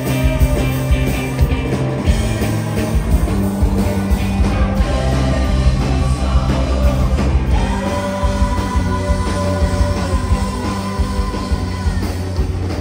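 Live indie rock band playing at full volume: several electric guitars, bass and drums, with a woman singing. Held notes ring out from about eight seconds in.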